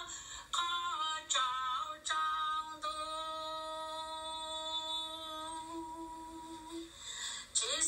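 A single voice singing without accompaniment: short gliding phrases, then one long note held for about four seconds that wavers near its end, and a new phrase sliding up just before the end.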